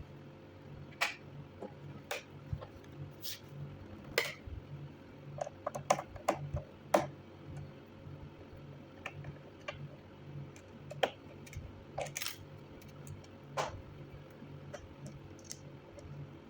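Scattered small clicks and taps of a laptop's plastic case and parts being handled and worked on during disassembly, over a low steady hum.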